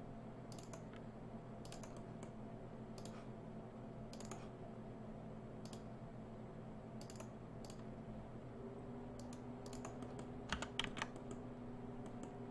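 Scattered single clicks of a computer keyboard and mouse, a dozen or so at irregular intervals, with a quick cluster near the end, over a faint steady hum.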